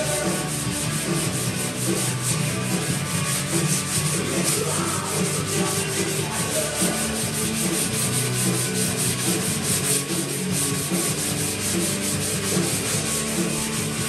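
Sandpaper being worked over a wooden pinball cabinet, a continuous dense scratching with rapid repeated strokes, as the old finish is sanded down to prepare for paint.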